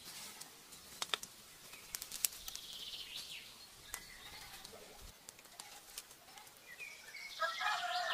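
Forest ambience with birds calling and scattered small sharp clicks from a fishing rod and reel being handled. Near the end comes the loudest sound, a pitched animal call with several stacked tones.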